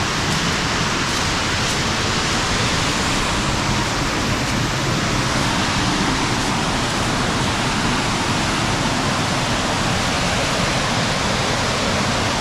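Steady roar of a large waterfall: continuous rushing water with no change throughout.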